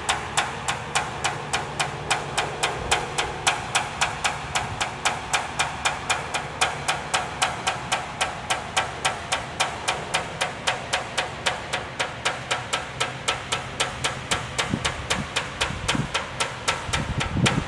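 A coin tapping rapidly and evenly along the trailing edge of a metal helicopter main rotor blade, about four to five light clicks a second. It is a tap test of the reworked area, done to find any unbonded spots.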